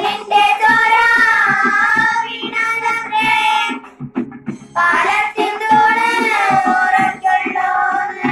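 Young girls singing a Malayalam folk song (nadanpattu) together in two long held phrases, with a short break about four seconds in, over a steady percussion beat.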